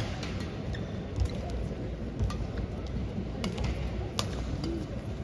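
Badminton rally: sharp cracks of rackets striking the shuttlecock, roughly one a second, over a low hum of the arena crowd.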